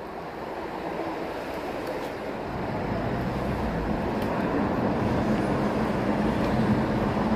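Road traffic on a city street: a steady rumble of engines and tyres that grows louder, with a vehicle engine running close by in the second half.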